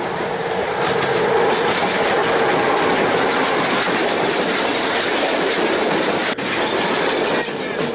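Model freight train running past close by, its wheels clicking and clattering steadily along the track, with a brief break a little over six seconds in.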